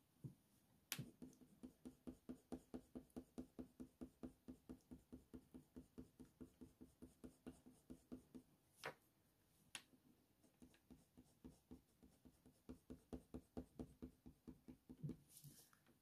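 Faint, rhythmic scratching of a Faber-Castell Polychromos colour pencil stroked back and forth on hot-press watercolour paper, about four strokes a second, blending one grey layer over another. The strokes pause for a few seconds past the middle, with a few light ticks.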